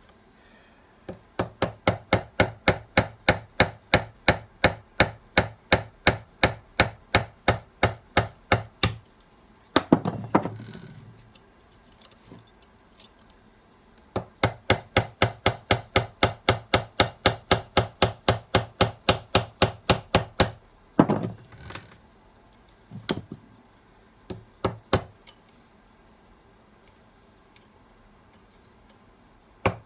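Hammer striking a drift to tap the fifth-gear synchro hub off a Ford Type 9 gearbox shaft: two long runs of steady metal-on-metal strikes, about three or four a second, broken by one louder ringing clang, then a few single strikes.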